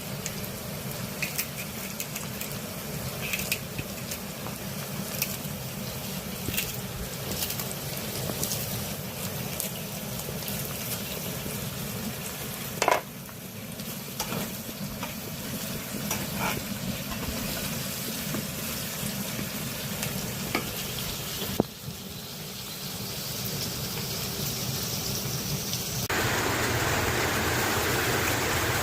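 Food frying and sizzling in a pan while a utensil stirs it, with many small clicks against the pan. There are two sharper knocks, about halfway and about three-quarters of the way through, and a louder, even hiss takes over near the end.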